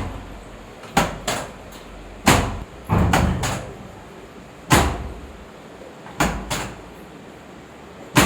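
A series of sharp thumps, some single and some in quick pairs, coming every one to two seconds, from a manual chiropractic spine adjustment.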